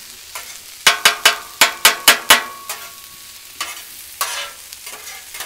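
Metal spatula clanking and scraping on a steel Blackstone griddle top while working sautéed peppers and onions: about seven quick clanks, one leaving a short metallic ring, then a few scrapes. Frying food sizzles underneath.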